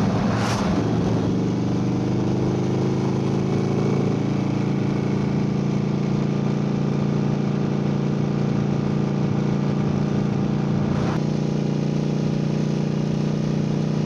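Motorcycle engine running on the road, its pitch rising slightly over the first few seconds and then holding steady at cruising speed. A brief rushing noise comes just after the start and again about eleven seconds in.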